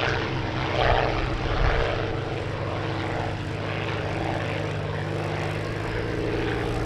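Two Supermarine Spitfire Mk IXs' Rolls-Royce Merlin V12 piston engines running together at take-off power as the pair lifts off, a loud, steady drone.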